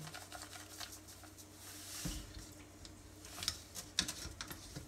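Hands handling raw yellowtail jaw pieces in a metal bowl while salting them: faint wet squishing with a soft knock about two seconds in and a few sharp light clicks near the end.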